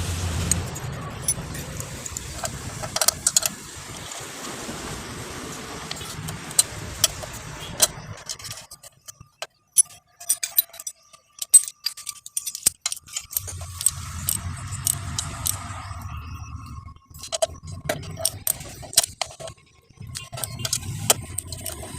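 Metal engine parts and hand tools clinking and tapping as a bracket is fitted and bolted onto a motorcycle cylinder head: irregular sharp clicks throughout. A low steady hum runs underneath and drops out for a few seconds in the middle.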